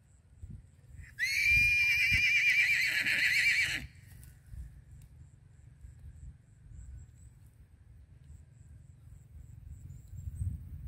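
A loud, high, wavering animal call, about two and a half seconds long, starting about a second in and cutting off abruptly. A low rumble with occasional thumps runs underneath.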